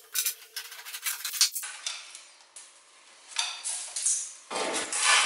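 Hand tools and loose metal parts clinking and knocking as parts are taken off a van's front end: a quick run of sharp clicks at first, then a few louder metallic knocks and scrapes, the loudest near the end.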